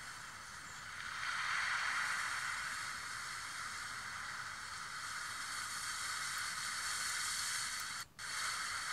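Steady hiss, a little louder from about a second in, cutting out briefly just before the end.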